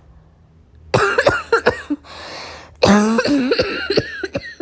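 A young woman's congested chest cough: a short fit of several hacks, a raspy breath in, then a longer fit of voiced hacks.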